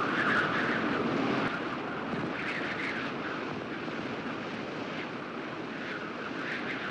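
Wind rushing steadily with irregular gusts, easing a little about a second and a half in.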